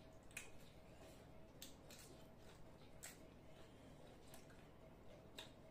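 Near silence with faint eating sounds: fingers mixing curry and rice on plates, giving about half a dozen soft clicks and squishes scattered through the quiet.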